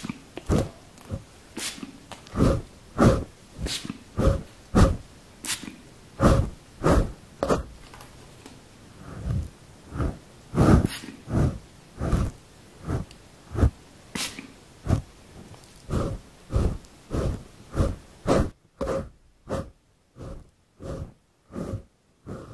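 A hand rubbing and stroking the fur of a furry microphone windscreen in a steady rhythm, about two rustling strokes a second, each with a dull thump from the handled microphone.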